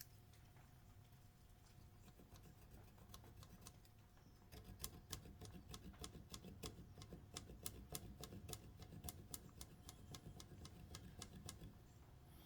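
Faint, quick light clicks and taps from measuring and pencil-marking wooden 2x2 posts, several a second and unevenly spaced, starting about four and a half seconds in; near silence before that.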